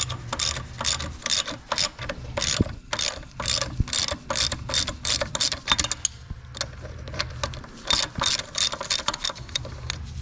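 Ratchet wrench on a 14 mm bolt of an ATV rear axle assembly: quick runs of ratcheting clicks with each back-stroke, a few strokes a second, pausing briefly about two-thirds through.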